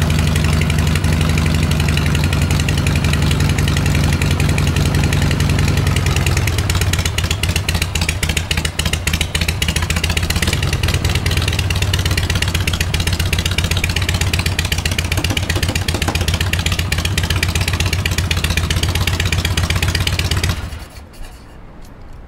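1982 Harley-Davidson Shovelhead V-twin engine idling after a kick start. It runs at a fast idle, then settles to a slower, steady idle about six or seven seconds in, and the sound cuts off sharply near the end.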